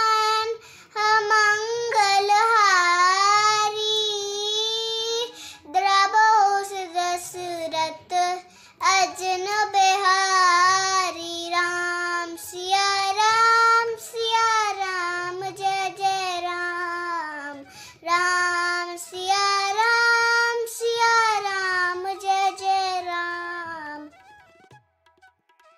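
A young girl singing a Hindi devotional bhajan to Ram in long, held, wavering notes with short breaths between lines. She stops about two seconds before the end.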